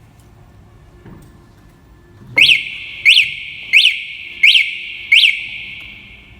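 Motorcycle anti-theft alarm siren giving five short electronic chirps, evenly spaced about two-thirds of a second apart, starting a little over two seconds in. Each chirp is a quick rise and fall in pitch with a ringing tail.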